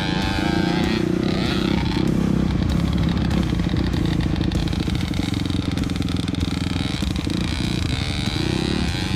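Dirt bike engine running steadily as the bike is ridden, its revs wavering up and down a little with the throttle.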